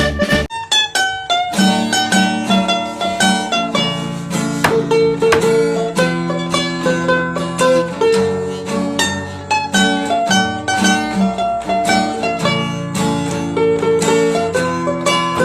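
Music: a plucked string instrument picking quick, busy melody lines without drums. A different music track with a low beat cuts off about half a second in.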